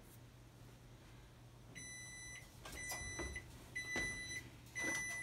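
Electronic cooking timer beeping four times at one steady high pitch, each beep about half a second long and spaced about a second apart, starting a little under two seconds in; it signals that the cookies' 4.5-minute bake is up. Light knocks come between the beeps as the oven door is opened.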